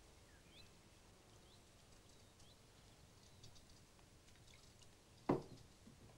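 Quiet handwork at a wooden kitchen table as peas are shelled and carrots peeled, with small clicks and a few faint, short bird chirps. One sharp knock comes about five seconds in.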